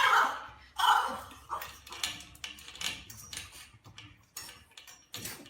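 A cat meowing, two downward-falling calls at the start, followed by a run of light clicks and knocks that fade out over the next few seconds.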